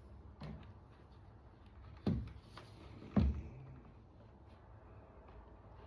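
Two sharp clunks about a second apart, with a few fainter clicks, as parts of an outdoor bar stool are handled and fitted together during assembly.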